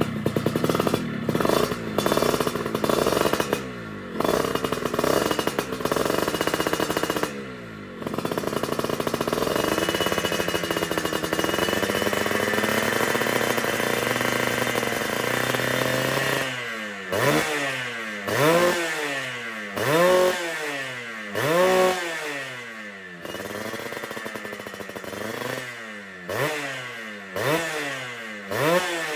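Suzuki Tornado GS 110 motorcycle engine through an aftermarket racing exhaust, running with a wavering, uneven rev for about sixteen seconds, then blipped repeatedly: sharp throttle stabs, about one every second and a half, each rising quickly and falling back to idle.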